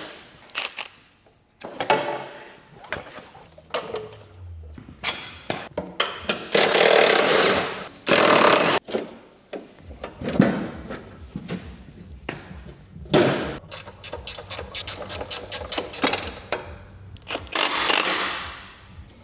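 Tools working on a snowblower's drive during disassembly: irregular metal clanks and knocks, a few loud rushing noises of about a second each, and a fast run of clicks in the second half.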